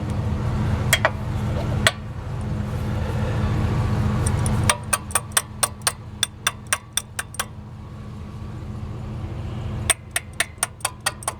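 Portable air compressor turned over by hand: a rushing whir that builds, then a rapid run of sharp mechanical clicks, about five a second and slowing. The whir builds again and a second run of clicks starts near the end.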